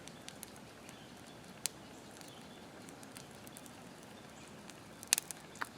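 Faint pops and crackles from a brush pile of oak tops and shrubs burning down to coals: a single sharp pop about a second and a half in and a few more near the end, over a faint steady hiss.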